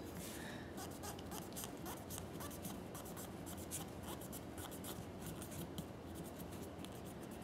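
Faint, continuous scratching of a solvent-soaked cotton swab scrubbed back and forth in the rear slide serrations of a SIG Sauer P226 pistol, full of small irregular ticks.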